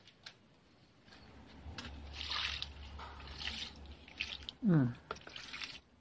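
Liquid poured from a green plastic basin, splashing and trickling onto potted plants for several seconds. Near the end come two short loud sounds falling in pitch.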